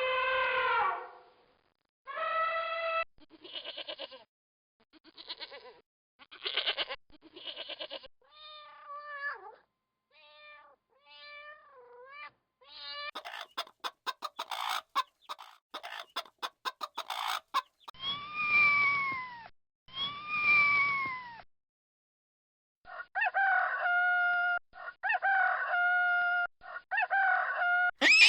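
A run of animal calls one after another: goats bleating with a fast wobble, then cats meowing, a stretch of rapid clicking and clucking from an ostrich, two falling kitten meows, and roosters crowing several times near the end.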